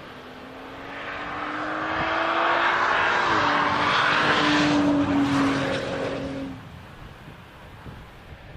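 Audi S5 Coupe's turbocharged V6 engine and tyres under way. The engine note climbs slowly, drops in pitch about three seconds in, then holds. The whole sound swells to a peak in the middle and fades away over the last couple of seconds.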